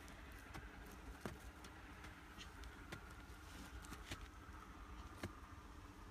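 Hand tools and hands digging into dry, hard soil: a few scattered sharp knocks and scrapes of a spade and hoe breaking clods, over a low steady rumble.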